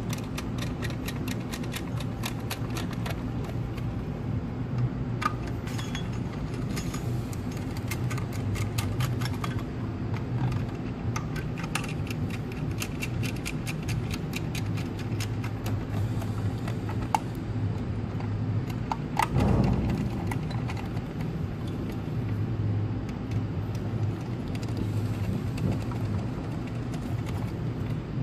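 Hand screwdriver turning the head-plate screws of an Invacare oxygen-concentrator compressor, with many small clicks and metal ticks of bit and screws, over a steady low hum. There is one louder knock about 19 seconds in.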